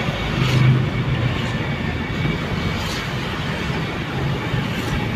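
Engine and road noise of a moving car heard from inside its cabin: a steady rumble with a low hum.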